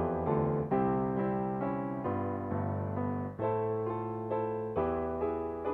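Piano playing a run of struck chords, each ringing and fading before the next, about every half second to a second.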